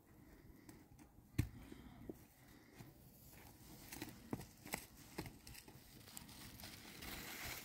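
Faint handling sounds: a few soft clicks and knocks, the sharpest about a second and a half in, over a quiet background.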